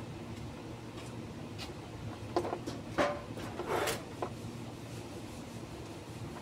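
Steady low hum of workshop background, with a few short scrapes and clicks between about two and a half and four seconds in.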